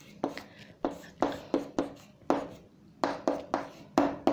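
Pen writing: a run of about a dozen short, quick strokes as a line of working is written out.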